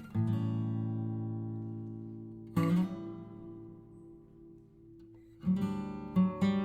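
Background music with strummed guitar chords: two chords ring out and fade slowly, then quicker strumming starts about five and a half seconds in.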